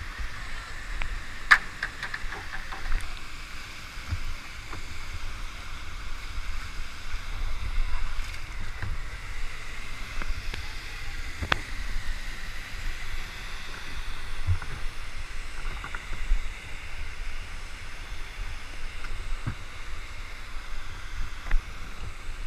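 Whitewater of a waterfall rushing in a steady hiss, under a low rumble, as a kayak runs the falls. A few sharp knocks cut through, the loudest about a second and a half in and again near the middle.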